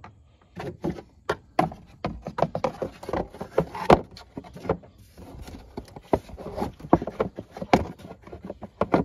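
Plastic engine cover of a Ford 2.7 EcoBoost being set back over the engine and pressed into place by hand, making a rapid, irregular series of clicks, taps and knocks of hard plastic.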